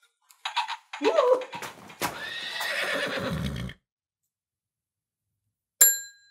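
A horse neighing, then near the end a single ding of a desk service bell that rings on briefly.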